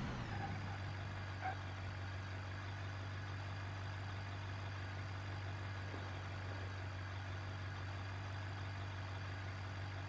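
Steady low mechanical hum, unchanging throughout, with a faint high whine over it and one small tick about one and a half seconds in.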